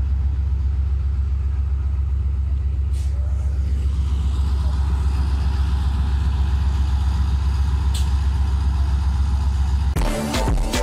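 ZCU-30 diesel locomotive idling at a standstill, a steady deep rumble. Music starts near the end.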